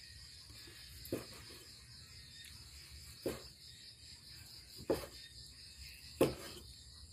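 Knife knocking on a cutting board four times, a second or two apart, the last knock the loudest, while cooked pork offal is cut into thin slices. A steady high insect chirring runs underneath.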